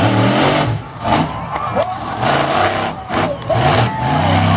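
Monster truck engine revving hard in repeated surges as the truck climbs over a row of crushed cars, with crowd voices underneath.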